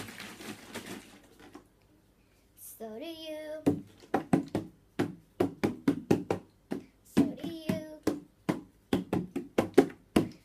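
Hands drumming on an empty plastic milk bottle in a steady beat of about three taps a second, with two short sung notes over it. A brief hiss opens the passage.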